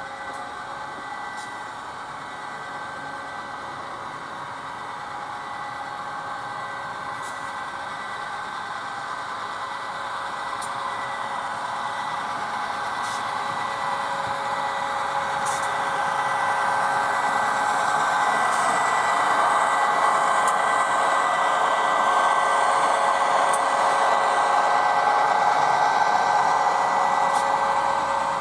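HO-scale model train running along the track, a steady whirring with a few held tones that grows louder over the first two-thirds and then holds, with occasional light clicks.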